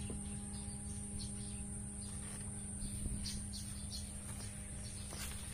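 Insects calling steadily with a high-pitched drone and faint, rapidly repeated chirps, over a low steady hum.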